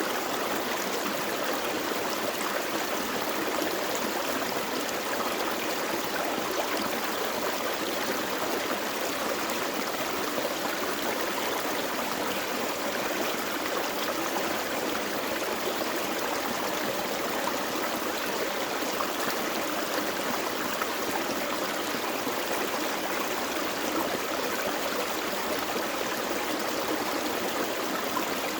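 Small forest creek flowing and burbling steadily over rocks, an even rush of water with no break.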